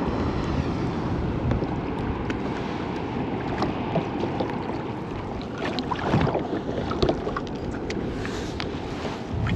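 Wind buffeting the microphone and water slapping against a kayak's hull, with a few small clicks and knocks, two a little louder about six and seven seconds in.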